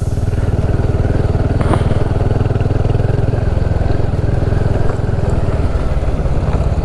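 Royal Enfield Himalayan 450's single-cylinder engine running steadily under way at an even pace, heard from on the bike.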